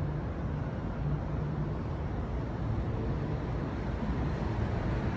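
Steady low rumble of city street ambience with distant traffic and a faint low hum.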